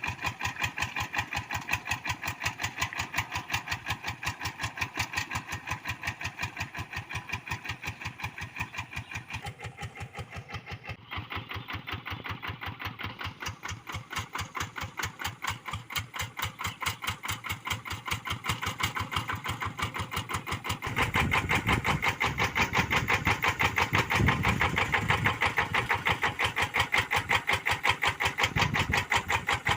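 Kubota RD85DI single-cylinder diesel on a Quick G1000 hand tractor running steadily, its firing strokes coming as an even train of pulses. About two-thirds of the way in it grows louder and heavier in the low end.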